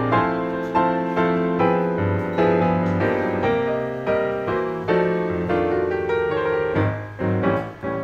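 Background music: solo piano playing chords, struck a little more often than once a second, each fading before the next.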